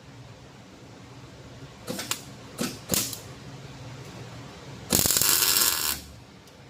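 Welder laying short tack welds on a steel power steering pump bracket: a few brief crackling bursts, then one louder, buzzing tack lasting about a second.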